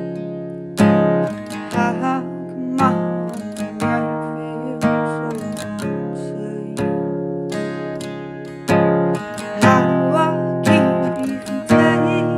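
Acoustic guitar strumming chords, each stroke struck sharply and left to ring out and fade before the next, roughly one a second.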